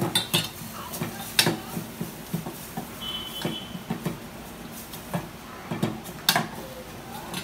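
A metal spoon stirring masala paste frying in oil in a small steel pot, scraping and knocking against the pot's sides with scattered sharp clinks.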